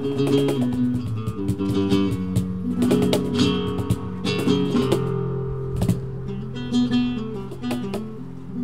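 Flamenco-style acoustic guitar music: sustained low notes with repeated sharp percussive accents.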